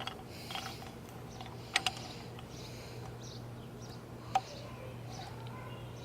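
Small thermostat parts clicking a few times as they are handled and fitted into the housing, two clicks close together and then one more, over a steady low hum.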